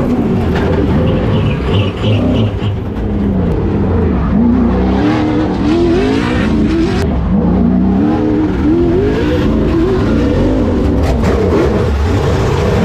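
Short-course off-road race engine revving hard under racing load, its pitch climbing and dropping again and again as the throttle is worked on and off.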